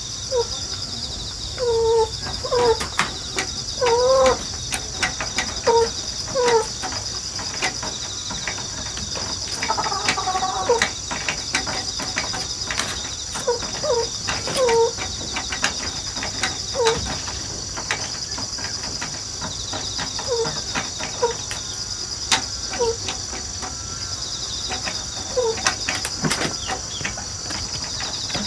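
Chickens clucking in short, separate calls, some in quick pairs, with a scattering of sharp clicks. Insects chirr steadily and shrilly underneath.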